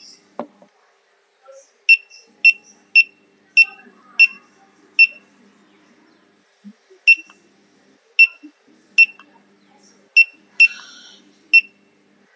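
GoPro Hero 3+ camera beeping: about a dozen short, high electronic beeps at uneven intervals as it powers off and restarts itself, the sign of a fully depleted battery BacPac.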